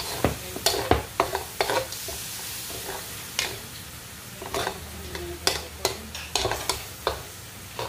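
Metal ladle scraping and knocking irregularly against an aluminium wok as chicken, onion and garlic are stirred, with the food sizzling in the pan underneath.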